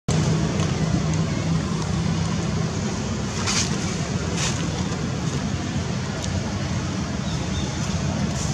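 Steady rushing outdoor background noise with a low hum underneath, and two short hisses about three and a half and four and a half seconds in.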